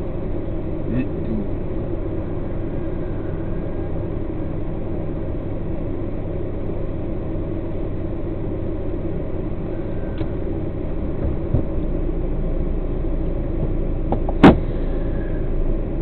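Truck's diesel engine idling with a steady low rumble. Near the end there is one sharp knock, the loudest sound here.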